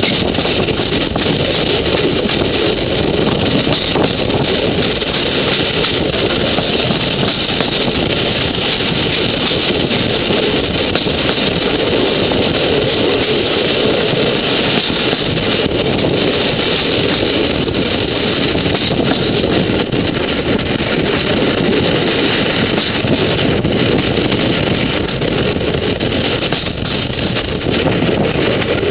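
A vehicle engine running steadily under a loud, even rushing noise, with no distinct knocks or changes.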